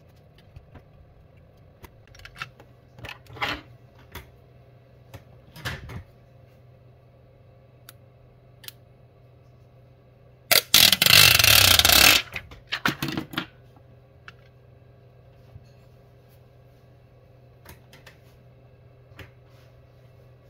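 Small clicks and rustles of phone glass and parts being handled on a silicone repair mat over a steady low hum. About halfway through comes a loud ripping, rasping noise lasting under two seconds, followed by a few crackles.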